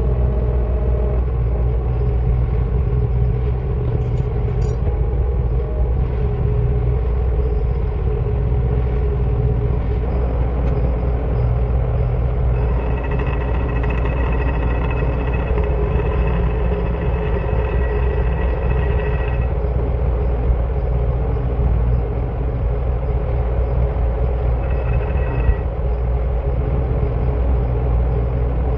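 Milling machine running, its end mill taking light cuts through the forge scale on a forged steel frame: a steady low hum, with a thin high whine from the cut from a little before halfway to about two-thirds through and briefly again near the end.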